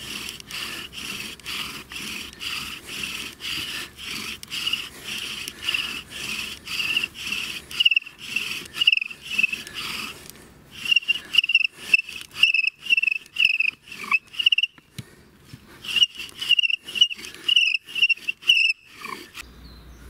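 Bow drill with a sycamore spindle turning in a sycamore hearth board under a hornbeam bearing block: a squeak and scrape of wood on wood with every stroke of the bow, in a steady fast rhythm, broken by two short pauses and stopping shortly before the end. This attempt grinds out plenty of dust, but the dust does not consolidate into a coal.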